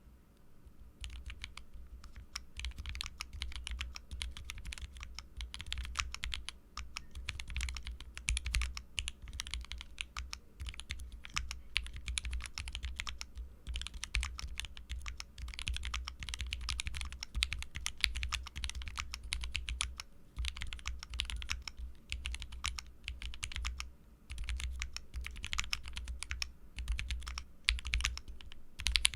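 Fast typing on a Nomu30 LE mechanical keyboard with lubed H1 linear switches and GMK keycaps, its case damped with foam and a lead sheet. A dense run of key strokes begins about a second in and carries on in bursts with brief pauses.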